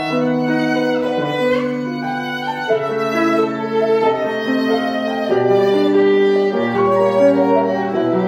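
Violin and piano duo: the violin bows a slow melody in long held notes over piano accompaniment.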